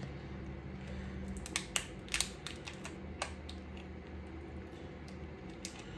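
A person eating seafood: chewing with scattered soft clicks and smacks, the sharpest about two and three seconds in, over a low steady hum.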